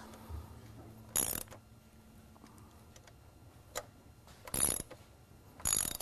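Ratchet wrench clicking in three short bursts as the front fork's pinch bolts are tightened.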